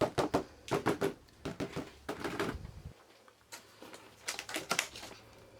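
Irregular clicking and light clatter of plastic seed-starting trays and covers being handled.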